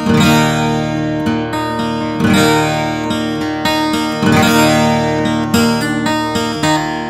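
Background music led by a strummed acoustic guitar, with heavier strums about every two seconds.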